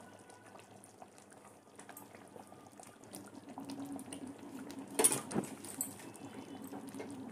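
Thick butter chicken gravy bubbling at a simmer in a pot, with small popping ticks. About five seconds in there is a sharp knock, the loudest sound, followed by two lighter knocks.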